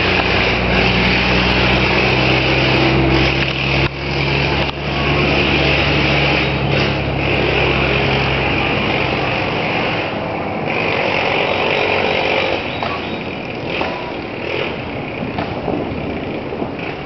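A motor vehicle's engine running with a steady low hum that stops about ten seconds in, over a loud, steady rushing hiss.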